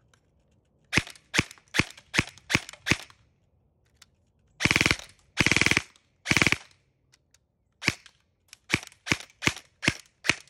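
Stock VFC Avalon PDW airsoft electric rifle firing BBs: six single semi-auto shots, about two to three a second, then three short full-auto bursts of about half a second each, then single shots again.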